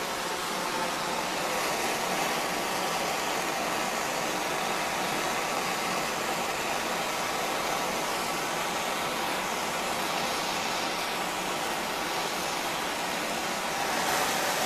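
Handheld gas torch burning with a steady hiss, its flame heating a Stihl BR600 blower's spark arrestor screen red-hot to burn off the carbon. It gets a little louder near the end.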